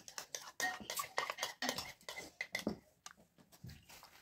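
Close-up eating sounds: a quick run of clicks and clinks from a spoon and bowls and from mouths. They thin out and fade after about three seconds.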